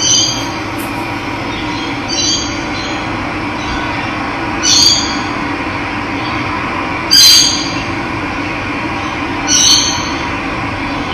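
Steady rush of running water with a bird giving a short, high call about every two and a half seconds, five times; the call about two-thirds of the way in is the loudest.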